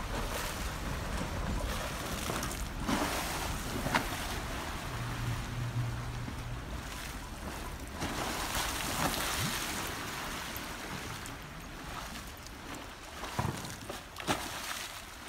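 Swimming-pool water sloshing and slapping against the pool walls as an earthquake rocks it, with a few sharper splashes near the end as a wave breaks over the far edge.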